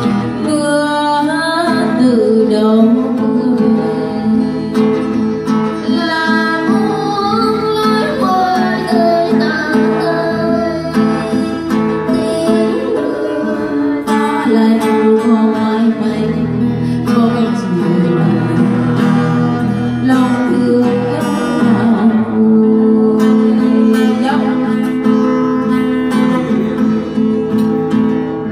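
Live Vietnamese song: a woman singing into a microphone, accompanied by a strummed acoustic guitar.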